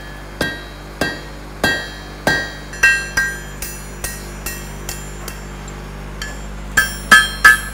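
Blacksmith's hammer striking metal on an anvil, each blow ringing. A steady run of strikes comes about twice a second, growing lighter in the middle, then quicker, heavier blows near the end.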